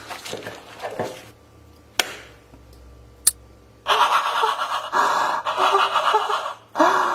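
Two sharp clicks, then a person panting hard in loud, rapid, noisy breaths from about four seconds in.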